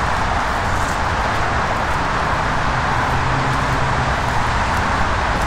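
Steady noise of freeway traffic on Interstate 94, an even wash of tyre and engine sound with no single vehicle standing out.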